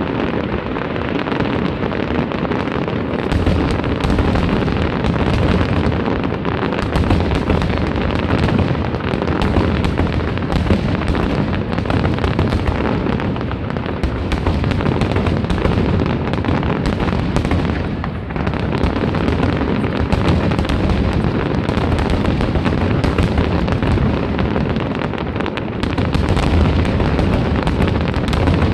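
Large aerial fireworks display going off in a dense, continuous barrage of overlapping bangs and booms.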